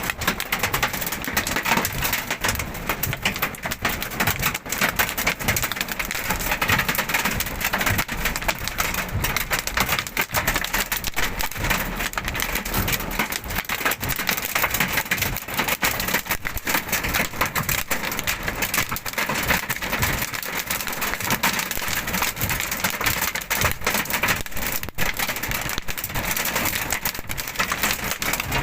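Hailstorm: hailstones and heavy rain pelting hard surfaces as a dense, steady clatter of countless small impacts.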